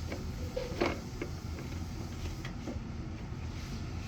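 Plastic vacuum cleaner parts being handled and fitted together: scattered light clicks and knocks, one a little louder about a second in, over a low steady hum.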